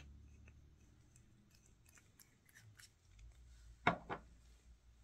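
Small tools and a resin bottle being handled: faint scattered ticks and taps, then two sharp clicks close together about four seconds in.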